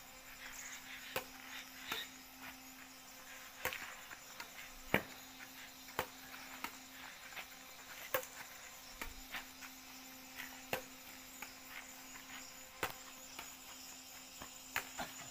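Badminton rackets striking a shuttlecock back and forth in a rally: sharp pops about every second, unevenly spaced, over a steady high insect drone.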